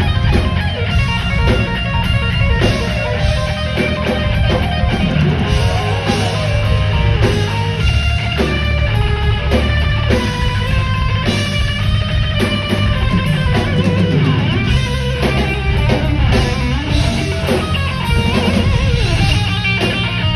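Heavy metal band playing: electric guitar over bass and drum kit, loud and without a break.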